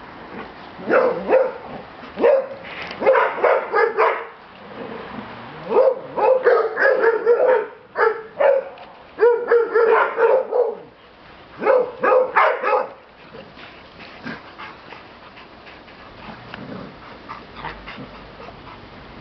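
A pack of excited dogs barking and yipping in greeting, in clusters of quick calls over the first thirteen seconds or so, then quieter.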